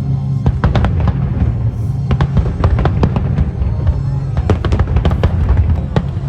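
Fireworks bursting in rapid succession, many sharp bangs and crackles close together, over loud music.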